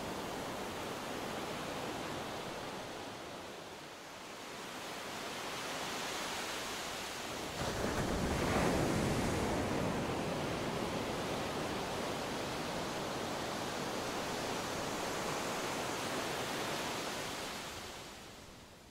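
Sea waves washing on a shore, a steady rushing that swells to its loudest about eight seconds in and fades out near the end.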